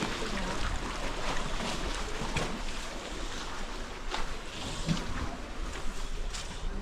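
Beach ambience: a steady wash of surf and wind, with a few faint short knocks.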